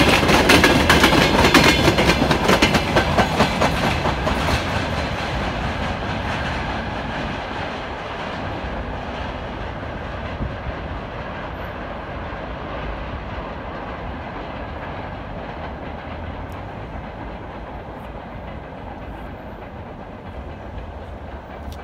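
Freight train of open gondola wagons rolling past, the wheels clicking over rail joints in a clickety-clack. The rumble then fades steadily as the train moves away.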